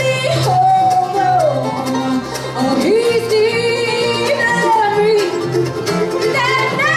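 Bluegrass band playing live: a woman sings lead in long held notes over picked banjo, mandolin and acoustic guitar, with electric bass underneath.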